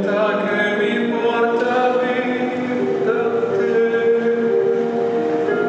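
Figure skating program music with sung voices in held, choir-like notes.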